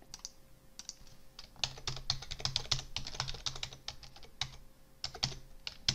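Computer keyboard typing a login password: a quick run of keystrokes, a pause, then a few more keys and one sharper click near the end.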